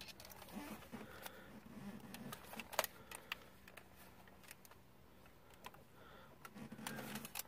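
Scattered light plastic clicks and handling noise from a gaming headset being picked up and handled, with one sharper click about three seconds in.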